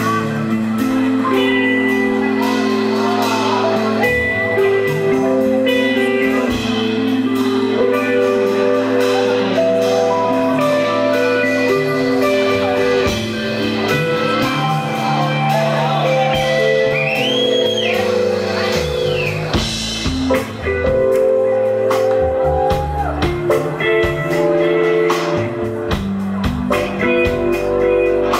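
Live band playing an instrumental passage: guitar over sustained chords that change every second or two. A little past the middle come two short rising-and-falling high calls.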